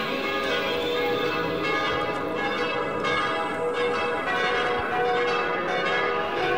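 Church bells ringing continuously, many bell tones overlapping one another.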